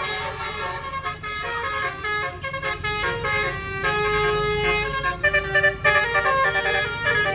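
A bus's Basuri telolet horn, a multi-tone musical air horn, playing a melody of quickly changing notes over the low rumble of the bus, loudest about five to six seconds in.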